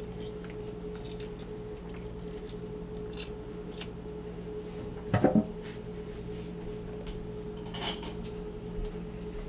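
Light clinks and scrapes of kitchen utensils against glass and ceramic bowls while the chicken is seasoned, over a steady low electrical hum. A brief louder knock comes about halfway through and a short scraping sound near the end.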